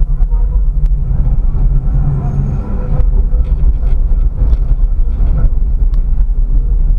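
A tram running on its rails, heard from inside the driver's cab: a steady low rumble of wheels and running gear, with a few sharp clicks as the wheels pass over rail joints and track crossings.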